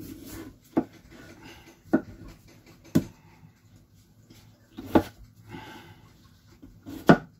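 Small whole potatoes being set one by one into a metal roasting pan, each landing as a short knock, five times at uneven intervals.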